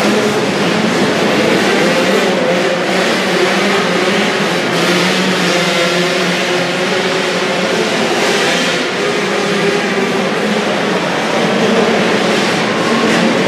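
Several 85cc two-stroke motocross bikes racing together, their engines revving up and down over one another.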